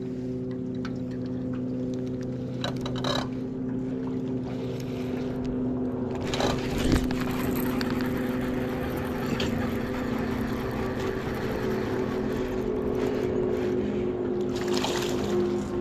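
Small outboard motor running at a steady speed with the boat underway, over the rush of water, with a few light knocks.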